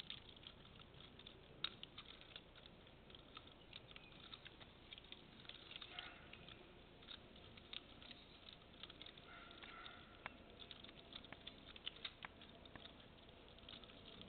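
Nunchaku being swung: faint, irregular light clicks and rattles from the chain and handles, scattered through otherwise near silence.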